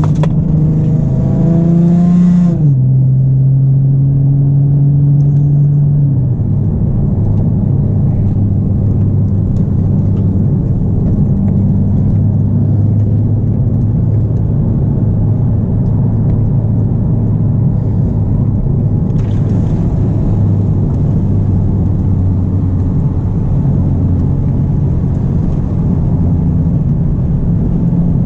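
Nissan 370Z's 3.7-litre V6 through a Greddy single RS exhaust and Motordyne ART test pipes, heard from inside the cabin. The revs climb for about two and a half seconds, then fall sharply at an upshift. The pitch steps down again about six seconds in, and the engine holds a steady low drone for the rest.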